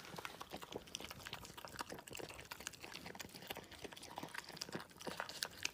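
Pembroke Welsh corgi puppy eating dry kibble from a bowl: a faint, rapid run of crunches and wet mouth clicks.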